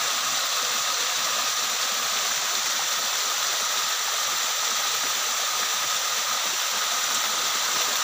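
Small waterfall spilling over rocks into a stream: a steady rush of falling, splashing water.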